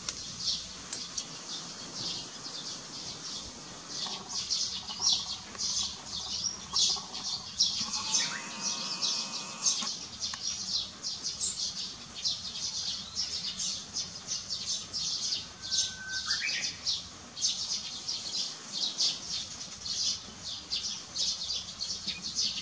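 Birds chirping continuously in quick, high-pitched notes, with a brief rising call about sixteen seconds in.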